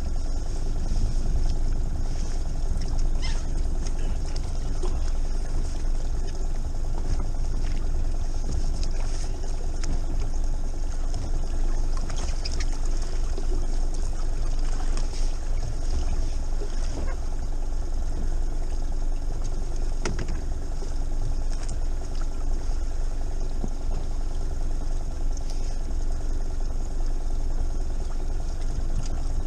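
Boat engine running steadily with an even low hum and a few light clicks.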